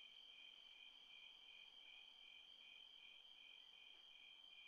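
Near silence with faint insect chirping that pulses about three times a second over a steady high tone.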